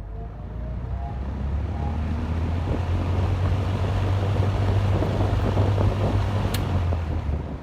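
1960s Lakewood-built 20-inch Windsor box fan with metal blades starting up: its motor hum and the rush of air build over the first few seconds to a steady, loud run. About six and a half seconds in there is a sharp click, and near the end the hum and airflow begin to wind down.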